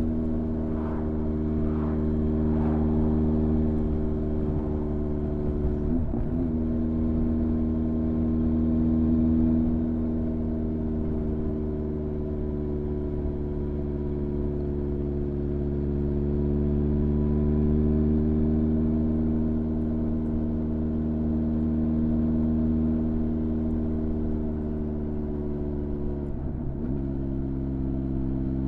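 Honda CB1300's inline-four engine running steadily at an even cruising pace, with two brief breaks in the engine note, about six seconds in and near the end.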